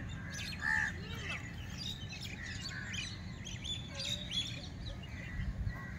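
Birds chirping and calling in the trees: many short high chirps and whistles, one louder call near the start. A low steady rumble runs underneath.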